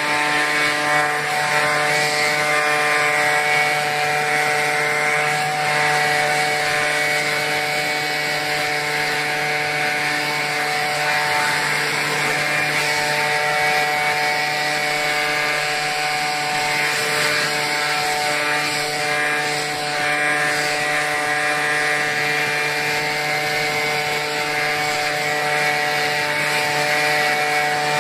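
Hitachi RB24EAP handheld leaf blower's 23.9 cc two-stroke engine running at a steady, unchanging pitch, with the rush of air from the blower nozzle.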